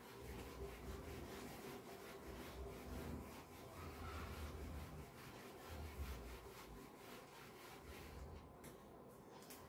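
A handheld board eraser rubbing marker writing off a whiteboard in repeated faint back-and-forth wiping strokes, which thin out near the end.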